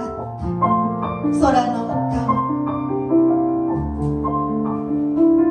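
Grand piano playing slow, sustained notes and chords, with a woman's voice over it for about a second shortly after the start.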